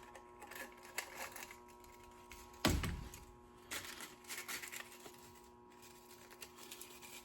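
Light clicks and clatter of small tools and parts being handled on a workbench, with one heavier knock about two and a half seconds in, over a steady hum.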